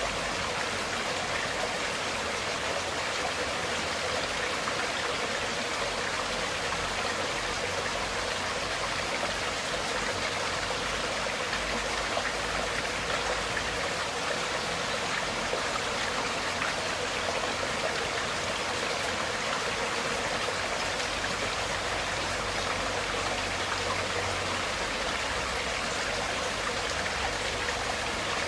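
Water flowing steadily, a stream's even rushing with no change or break.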